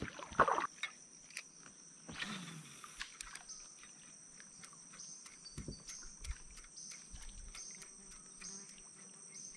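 Insects trilling in a faint, high, steady drone with rapid even pulses. A short rush of noise comes about two seconds in, and a few soft knocks follow.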